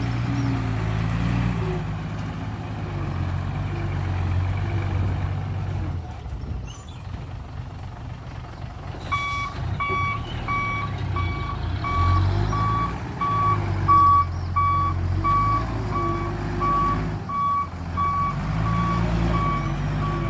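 Heavy truck engine running, then from about nine seconds in a dump truck's reversing alarm beeping steadily about twice a second as it backs up, the engine revving up now and then under it.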